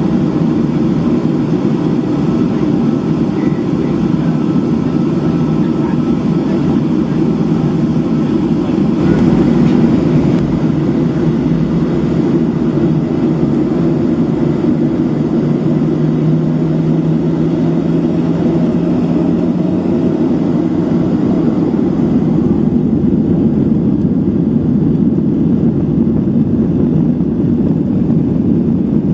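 Cabin noise of a Boeing 737-700 climbing out after takeoff: the CFM56-7B turbofans at climb power with rushing air, a steady low roar heard from inside the cabin. It swells briefly about nine seconds in.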